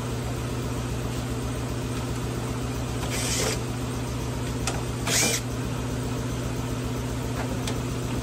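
Two brief bursts of a Makita cordless drill backing out the screws of a speaker bracket, about three and about five seconds in, the second one rising in pitch. A steady low hum runs underneath throughout.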